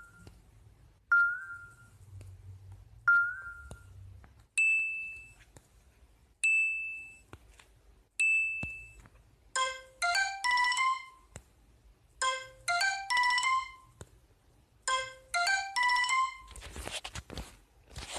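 Smartphone ringtone and notification tones from an LG K7 playing in turn through its speaker: a short tone with a little upward slide repeated twice, three higher single tones about two seconds apart, then a quick rising run of chime notes played three times. Near the end comes a brief burst of rapid rattling clicks.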